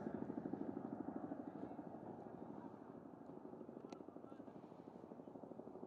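Ka-52 attack helicopter's coaxial rotors beating in a fast, even rhythm of blade thumps, slowly fading as it flies away.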